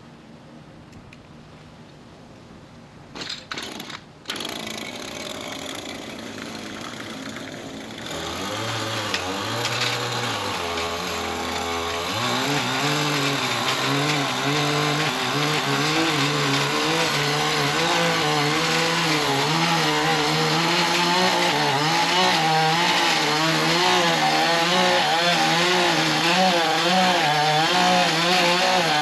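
Small petrol engine of a lawn edger: two tugs on the pull-start about three seconds in, then it catches and idles. It is throttled up around eight seconds and again around twelve, and then runs at high speed with a wavering pitch as it edges.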